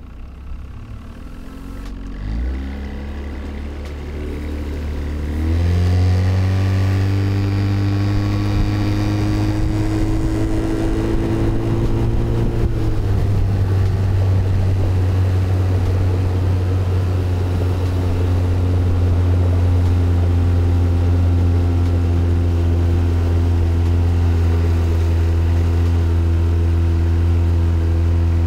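Boat's outboard motor throttling up, rising in pitch over a few seconds, then running steadily at speed; it eases off slightly about halfway through and holds steady after that.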